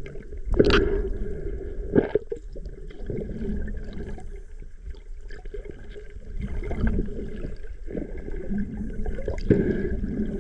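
Water gurgling and sloshing around an action camera in the sea, with sudden louder splashing surges about half a second in, about two seconds in and near the end.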